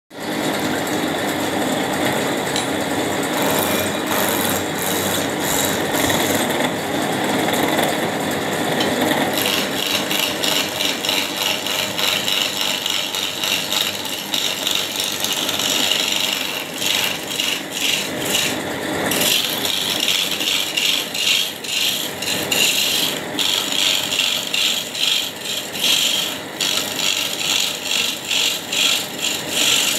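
Hand-held turning chisel cutting into a block of wood spinning on a wood lathe: a continuous rasping scrape. It grows sharper after the first third, and in the second half it rises and falls rapidly and unevenly.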